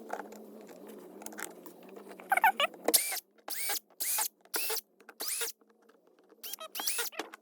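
A pressure washer spray gun is handled and its trigger squeezed and released over and over. Rustling and small clicks of handling come first, then a run of about five short, squeaky clicks roughly every half second as the trigger is worked.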